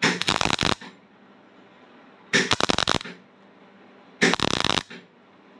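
MIG welding arc crackling in three short zaps, each under a second long, as weld is built up on the top of a broken steel stud so it can be gripped and backed out of the leg casting.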